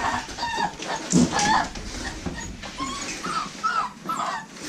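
Young American Bully puppies whimpering and squeaking, a run of short, high-pitched whines.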